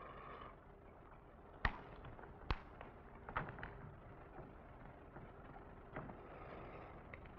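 Sharp knocks of a barefoot performer's feet and knees landing on a stage floor. Two loud ones come about a second apart, then a weaker pair close together and one softer knock later, over a steady hiss.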